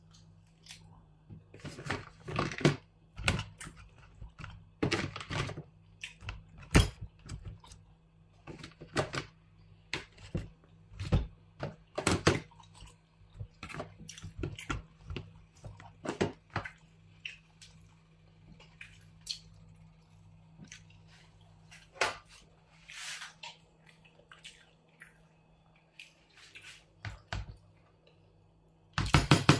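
Pieces of cooked tripe and beef dropped into a plastic tub of pepper sauce and stirred with a spoon: irregular wet squishes, knocks and scrapes of the spoon against the tub, over a faint low hum.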